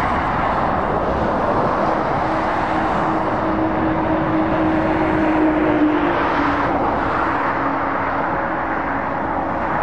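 Road traffic on a dual carriageway, dominated by an approaching Iveco S-Way lorry pulling a shipping container: steady tyre roar and a diesel engine hum. The hum drops slightly in pitch about six seconds in.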